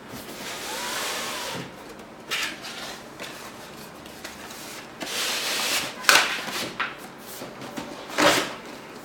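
Cardboard packaging rubbing and scraping, with a few short knocks, as a power supply and its parts are packed back into the box.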